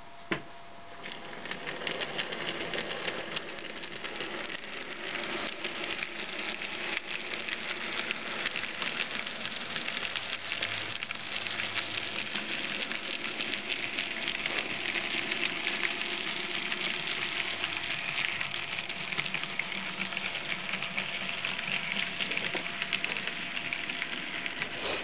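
N gauge model passenger train running on the layout: a dense crackling rattle of its wheels on the track with a faint steady hum, building up about a second in after a single sharp click.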